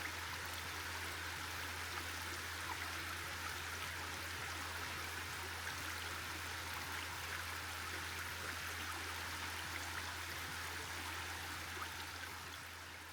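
Creek running with a steady rush of flowing water, fading out near the end.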